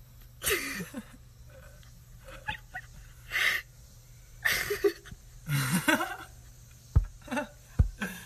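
Breathy, wheezy laughing sounds in short bursts, several seconds apart. Near the end come a few dull knocks against the glass the chimpanzee is touching.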